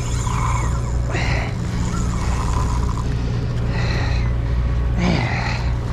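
Steady low drone of the fishing boat's engine running, with short, sharper noises breaking in every second or two.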